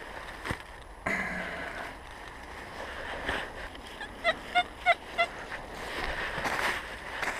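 XP Deus metal detector giving four short target beeps, about three a second, some four to five seconds in, over dry leaves and undergrowth rustling and crunching underfoot as the coil is swept across the forest floor.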